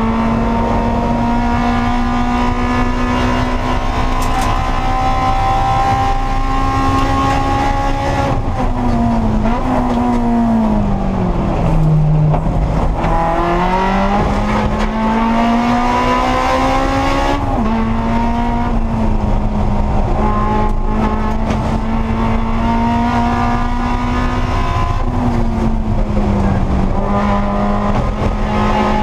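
Honda S2000 race car's four-cylinder engine at high revs, heard from inside the cockpit. It holds a steady pitch under power, falls in pitch as the car slows for a corner about nine seconds in, then climbs again on acceleration. Quick drops in pitch at gear changes come around 17 and 25 seconds.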